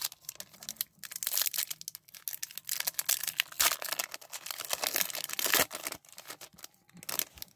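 Foil wrapper of a Skybox Metal hockey card pack being torn open and crinkled by hand, a dense run of crackles, as the cards are slid out of the wrapper.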